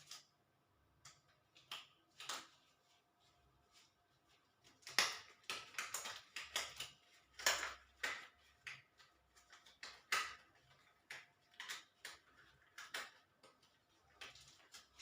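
Irregular short rustles and clicks of hands handling things at close range, busiest from about five to eight seconds in.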